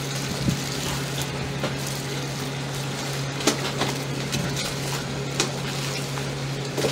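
Steady low hum and hiss of stall background noise, with a few light clicks and taps scattered through it.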